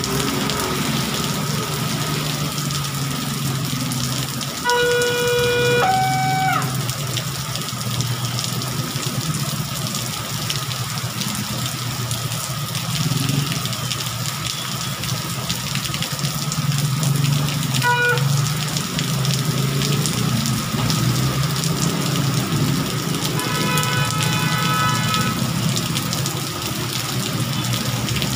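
Heavy rain pouring down on a busy road, with traffic running through it. Vehicle horns honk several times: a horn about five seconds in that changes pitch partway, a short beep about halfway through, and a longer horn near the end.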